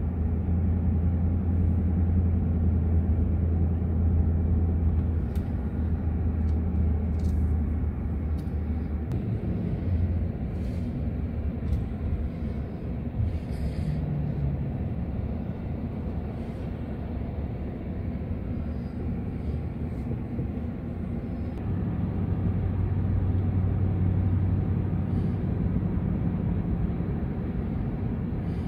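A car driving, heard from inside the cabin: a steady low rumble of engine and tyres on the road, with a deeper drone that is stronger for the first several seconds and again near the end, and a few faint clicks in between.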